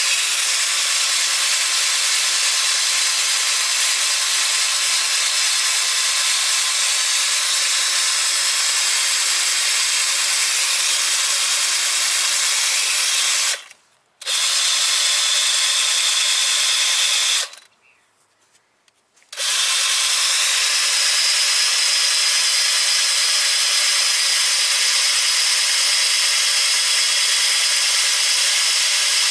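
Power tool with a wire brush running against rusty steel, scouring rust off a rear wheel spindle's mounting face so a plate will sit flat. It stops briefly about 14 seconds in and again for nearly two seconds around 18 seconds, then runs on with a brighter, higher tone.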